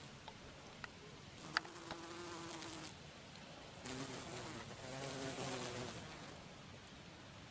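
Bees buzzing in flight close to the microphone. Their wingbeat hums come and go, with several overlapping in the middle, and a few faint ticks come in the first two seconds.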